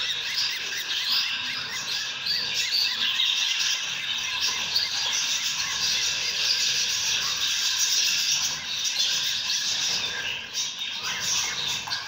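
Budgerigar chicks begging with rapid, continuous high cheeping while being fed formula by syringe.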